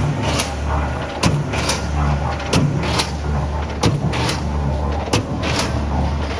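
Heavy expanded metal machine running: a steady low hum of the drive, with a sharp metallic clack in pairs about every 1.3 seconds as the toothed blade slits and stretches the steel sheet into mesh.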